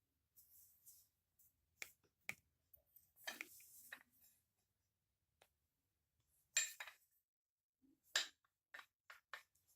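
Faint, scattered metal clicks and clinks of a hand tool being handled, about a dozen separate sharp taps spread unevenly, with a louder pair about two-thirds of the way in.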